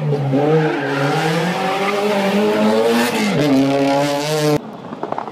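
Renault Clio rally car's engine revving hard through a tight hairpin. Its pitch dips briefly partway through, then climbs again as the car accelerates away. The engine sound cuts off suddenly near the end.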